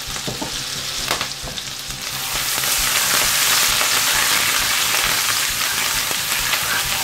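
Ginger and garlic paste sizzling in hot melted butter in a nonstick pan. The sizzle gets louder about two seconds in, when a spatula starts stirring the paste through the butter, with light scrapes and taps against the pan.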